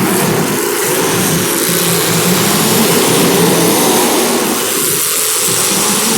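Several demolition derby car engines running together, loud and steady, their pitch wavering.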